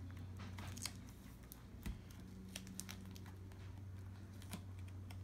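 Faint small clicks and rustles of fingers pressing the display cable connector into the back of a replacement laptop LCD panel, over a low steady hum.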